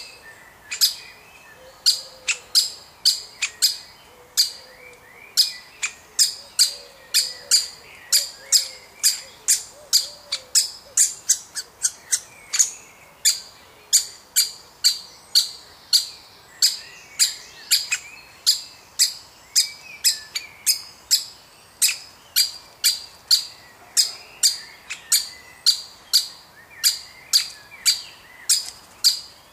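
Woodpecker calling: a short, sharp, high call repeated about twice a second, on and on, with faint softer chirps beneath.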